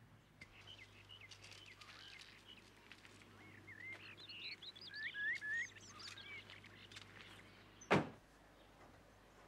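Songbirds chirping and warbling in quick short phrases over a steady low hum. Near the end comes a single loud thump, and the hum stops with it.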